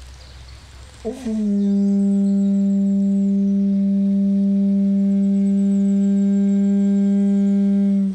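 Conch shell blown as a horn: about a second in, a brief wavering start settles into one long steady low note, rich in overtones, held about seven seconds and cut off abruptly.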